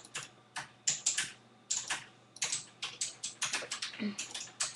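Keys tapped on a computer keyboard: an irregular run of quick clicks, several a second, some in close pairs.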